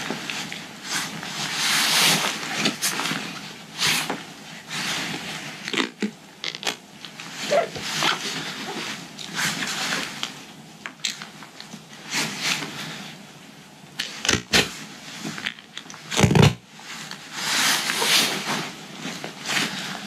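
Camo duct tape being pulled off the roll and wrapped around a backpack's nylon hip-belt strap, in a string of ripping and crackling peels with pauses between. The loudest pull comes about sixteen seconds in.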